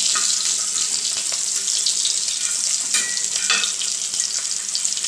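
Stuffed green chillies shallow-frying in oil on a flat tawa: a steady sizzle with small crackles, and a few clicks of a metal spoon turning them, two of them about three seconds in.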